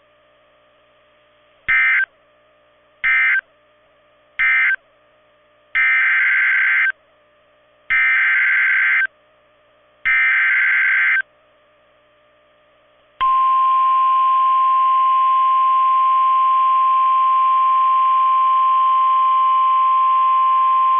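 NOAA Weather Radio Emergency Alert System data bursts. First come three short end-of-message bursts that close the tornado warning. Then three longer SAME header bursts, about two seconds apart, open a new alert, and about 13 seconds in the steady single-pitch 1050 Hz warning alarm tone begins and holds.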